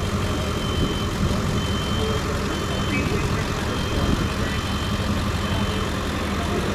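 Emergency vehicle's engine idling steadily, a continuous low sound with no changes in pace.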